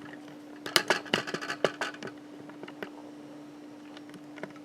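A quick run of clicks and taps, mostly between about one and two seconds in, with a few single clicks later: the cordless phone base being handled and its buttons pressed. A steady low electrical hum runs under them.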